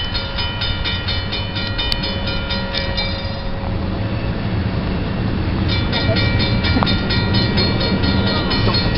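Diesel locomotive rumbling, growing slightly louder in the second half, with a bell ringing in rapid, even strikes that stops for about two seconds mid-way and then resumes.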